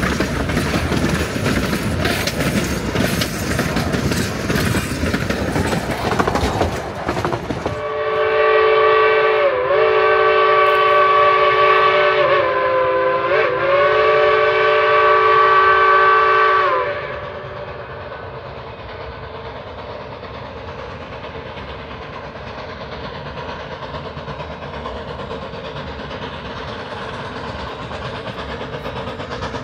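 A Durango and Silverton K-28 narrow-gauge steam train passing close, its exhaust and wheels clattering loudly; this stops abruptly about eight seconds in. A steam locomotive whistle then blows for about nine seconds, broken by two brief dips, and after it stops only a quieter steady rumble of the train remains.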